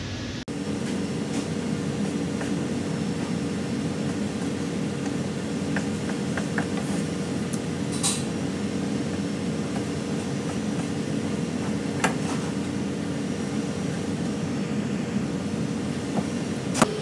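Steady low hum of kitchen machinery, with a few sharp knocks and clinks as a knife cuts peeled shrimp on a plastic cutting board.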